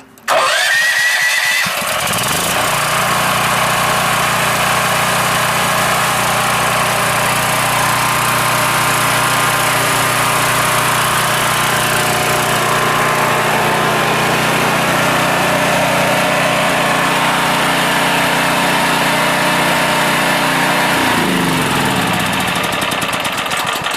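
Champion 439cc single-cylinder portable generator engine starting when already hot, catching abruptly and rising to speed, then running steadily; its automatic electronic choke engages even though the engine is warm, so it doesn't start smoothly. Near the end its pitch drops.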